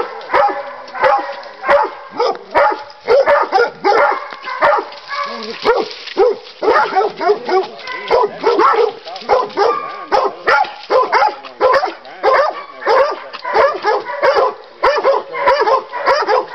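Yellow Black Mouth Cur barking steadily at a bayed feral hog, about two barks a second: bay barking that holds the hog in place.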